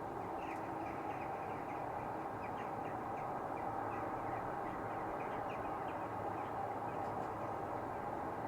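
A steady droning rumble from the sky that sounds like loud flying airplanes. Many short, high chirps of small birds sit over it throughout.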